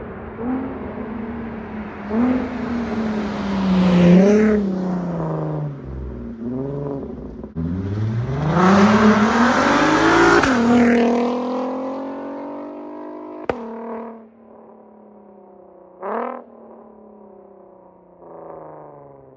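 Volkswagen MK5 R32's VR6 through a Magnaflow cat-back exhaust and catless headers, the "Wookie" exhaust tone, revving up and down under driving. A strong pull rises in pitch about eight seconds in, then the engine eases off to a lower, steadier note with a short throttle blip about sixteen seconds in. There is a sharp click about thirteen seconds in.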